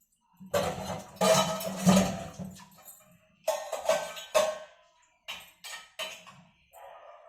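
Metal dishes and utensils clattering and clinking in several irregular bursts, with some ringing.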